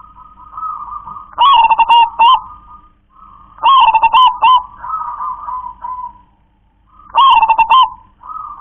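Zebra dove (perkutut) singing its cooing song: three loud phrases of quick coo notes, about a second and a half in, near four seconds and about seven seconds in, with a softer rolling trill between them. The song is the kind rendered as "klar-ke-tek-kong".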